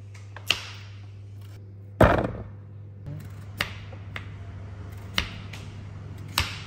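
Kitchen knife slicing a peeled potato on a wooden cutting board: several sharp knocks of the blade on the board, a second or so apart, with one heavier thump about two seconds in.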